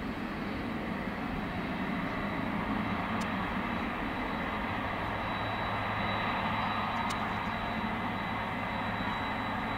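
Boeing 767-300's twin turbofan engines running at low thrust as the airliner taxis after landing: a steady jet rumble with a steady high whine over it.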